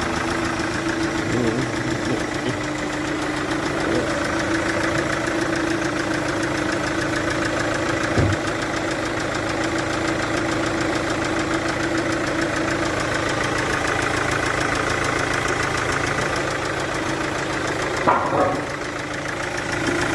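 Chevrolet VCDI common-rail diesel engine idling steadily with a fast, even ticking, the sign of cylinder compression leaking past a failed injector seal. A single thump about eight seconds in.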